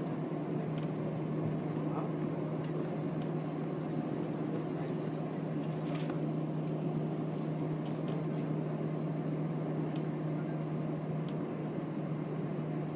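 Airliner cabin noise after landing: a steady hum of engines and air conditioning with a constant low tone, and a few faint clicks.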